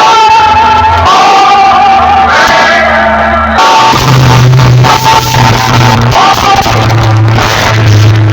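Very loud music with a sung vocal over deep, booming bass notes, played through a DJ sound box; the bass note steps higher about halfway through.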